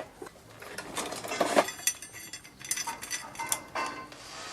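Scattered light metallic clinks and taps, a few ringing briefly: metal parts and tools knocking together as the back wheel of a mini dirt bike is fitted and its axle nut worked on.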